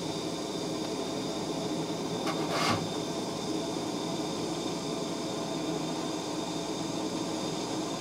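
MAP gas torch flame running steadily on an old soldered copper washing machine shutoff valve, with steam hissing from water trapped in the pipe, and a brief louder spurt about two and a half seconds in. While the steam is still coming off, the water has not boiled out and the joint is not yet hot enough to melt the solder.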